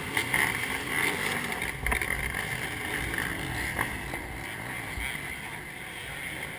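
A pack of motocross bikes revving and accelerating away from the race start. The engine noise is loudest in the first couple of seconds and eases off as the bikes pull away down the track.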